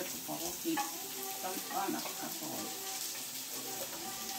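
Sliced carrots and onions sizzling in hot oil in a frying pan as a spatula stirs them, with an indistinct voice over the top.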